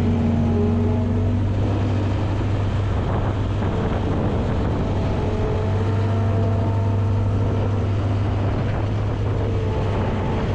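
Skid steer loader's engine running steadily under load while the bucket lifts and tips snow, with a strong low hum and a few pitched tones drifting above it.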